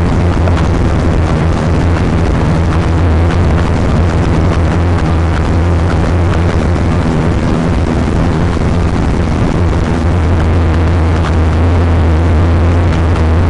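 Steady low rumble and hiss of a vehicle driving, unchanging throughout.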